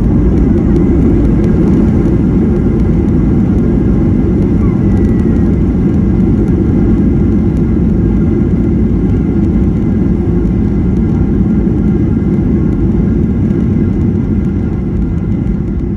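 Cabin rumble of a Boeing 737-900 on its landing rollout, spoilers up, heard from a window seat behind the wing: a loud, steady low rumble of wheels and engines that eases off near the end as the aircraft slows toward taxi speed.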